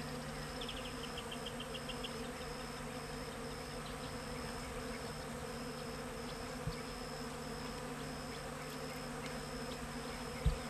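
Honeybees buzzing in a steady hum as they forage on corn tassels. A faint high chirp repeats at even intervals behind it, a quick run of ticks comes about a second in, and a brief thump sounds near the end.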